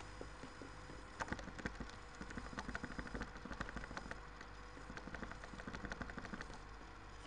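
Rapid runs of small clicks from a computer mouse scroll wheel being turned, over a low steady hum.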